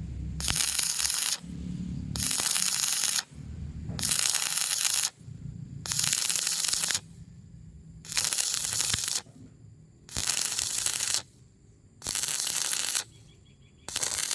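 Stick-welding arc crackling in repeated bursts of about a second each, the arc struck and broken roughly every two seconds.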